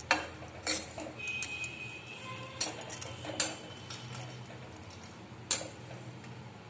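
Metal spatula scraping through roasted grated dry coconut and knocking against a steel kadhai as the coconut is scooped out of the pan, with a few sharp clinks scattered through.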